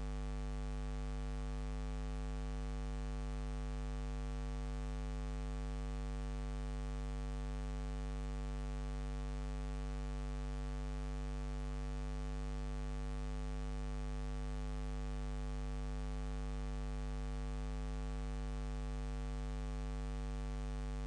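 Steady electrical mains hum with many overtones over a layer of hiss, and nothing else: the empty soundtrack of a silent home-movie film transfer.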